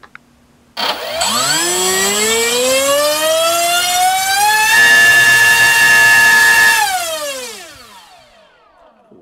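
NTM PropDrive 3536 1800kV brushless motor spinning a TGS 6x4 propeller on a 5S LiPo: a loud whine that rises in pitch for about four seconds as the throttle comes up, holds steady at full throttle for about two seconds, then falls away as the throttle is cut. At full speed the tester thought the prop sounded like it was warping a bit.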